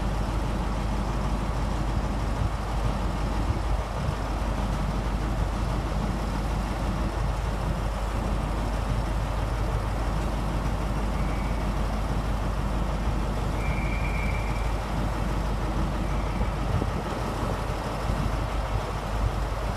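Class 43 HST power car's MTU diesel engine idling steadily at a standstill: a continuous low rumble.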